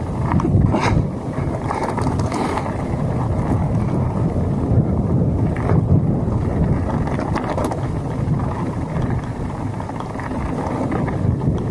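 Downhill mountain bike running over a loose gravel trail: wind buffeting the camera's microphone and steady tyre noise on stones, with a few sharp knocks and rattles from bumps.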